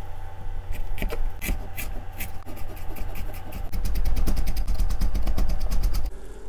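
Large kitchen knife chopping ginger on a wooden cutting board: scattered strokes at first, then a fast, even run of knife strikes that stops suddenly near the end.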